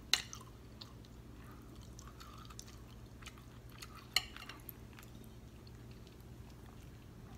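Quiet, wet eating sounds: a spoon working sauce out of a glass bowl over a green-lipped mussel, with a few sharp clicks and smacks just after the start and about four seconds in. A low steady hum sits under them.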